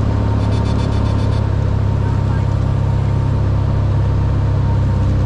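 Piston engine and propeller of a single-engine light aircraft droning steadily, heard inside the cabin during the landing approach. About half a second in, a quick string of high-pitched pulses lasts about a second.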